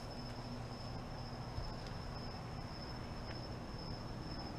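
Crickets trilling steadily in one unbroken high-pitched tone, over a low hum, with one faint click about a second and a half in.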